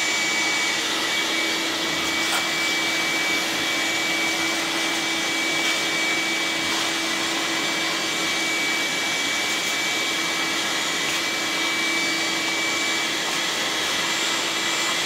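Vacuum cleaner running steadily with a constant whine, its hose sucking packed dirt and rodent nest debris out of a lawn tractor engine's blocked cylinder cooling fins.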